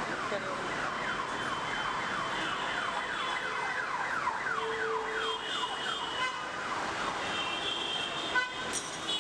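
Emergency vehicle siren in a fast repeating pattern, its pitch falling about three times a second, over steady street traffic noise. It fades out about six seconds in, leaving traffic, and a sharp click comes near the end.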